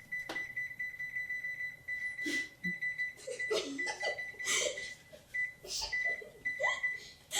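Electronic kitchen alarm tone, a steady high beep that breaks into short beeps near the end. Knocks and clatter of pans being handled run under it.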